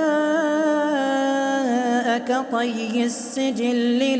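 A man chanting Quran recitation in melodic tajweed style, holding a long drawn-out note that wavers and steps down in pitch, with a brief hiss about three seconds in.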